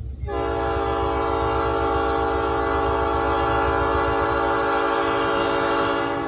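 Diesel locomotive's multi-chime air horn sounding one long steady blast, a chord of several notes, over a low engine rumble.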